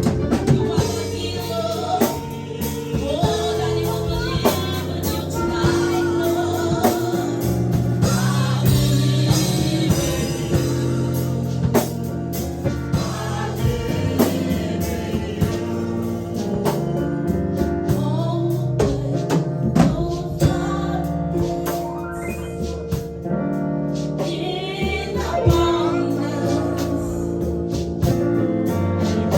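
Gospel worship music: voices singing over a band with a steady drum beat.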